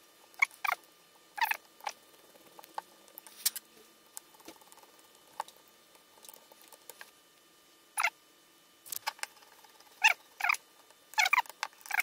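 Screwdriver driving the screws back into a Hitachi angle grinder's gear-head cover: scattered short squeaks and clicks of metal on metal, busiest near the end.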